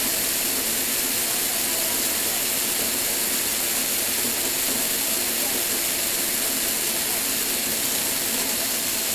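Lego Technic conveyor running: small electric motors whir steadily through plastic worm gears, with a constant hiss over the top.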